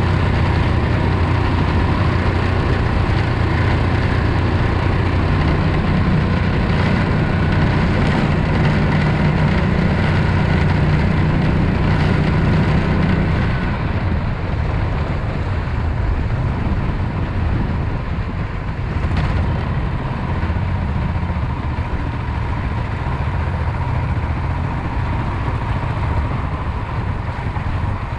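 Predator 420cc 13 hp single-cylinder engine of a longtail mud motor running steadily, driving a jon boat. It drops a little in level about halfway through.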